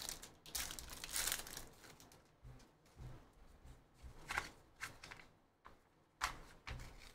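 Foil wrapper of a Panini Prizm football card pack torn open and crinkling, loudest in the first second and a half. Scattered soft clicks and rustles follow as the stack of cards is handled.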